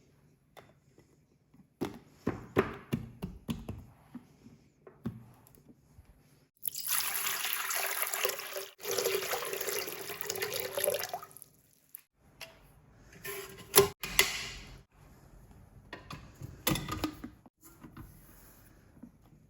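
Water from a kitchen tap running into a container for about four seconds, in the middle, with a pitch that rises a little as it fills. Scattered clicks and knocks of kitchen utensils come before and after it.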